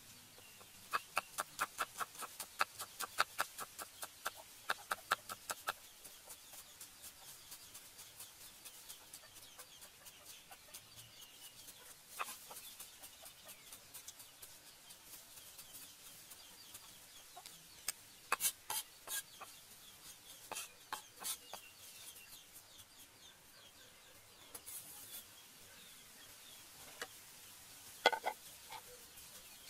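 Cleaver chopping garlic on a wooden chopping block: a quick run of knocks, about five a second, for several seconds, then scattered single chops, with a few louder knocks near the end.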